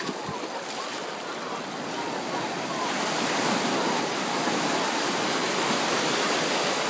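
Small waves breaking and washing up the sand at the water's edge: a steady rush that grows louder a little before halfway through.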